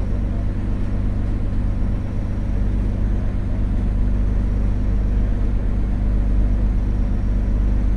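Boat's engine running steadily, a continuous low drone heard from on board.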